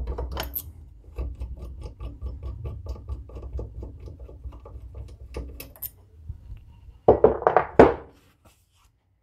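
Steel installer plate being worked loose and taken off an aluminium engine crankcase: a run of light metallic clicks and rattles, then a few loud knocks near the end as it comes away.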